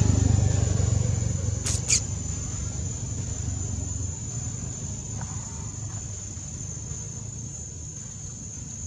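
Steady high-pitched insect drone, with a low rumble that fades away over the first few seconds and two sharp clicks a little under two seconds in.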